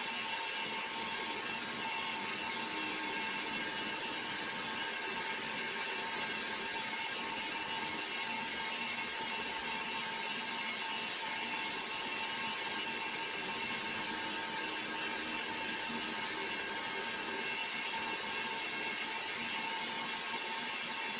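Small workshop machine tool running steadily while machining metal parts: an even motor whir with a constant whine that holds the same pitch throughout.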